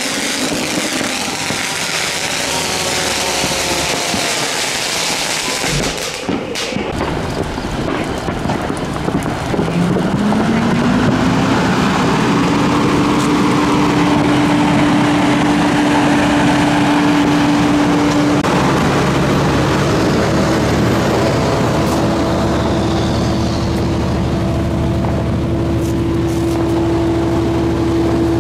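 A fountain firework crackling and hissing, cut off suddenly about six seconds in. Then a fire engine's engine runs steadily under hiss, with a tone that rises about three seconds after the cut and settles, stepping up in pitch twice later, as it drives the pump for a hose working a grass fire.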